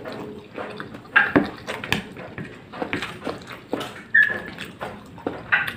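Close-up chewing and lip-smacking as a person eats rice with sayur asem, a tamarind vegetable soup. Irregular wet mouth clicks run throughout, with a few louder smacks or slurps scattered through.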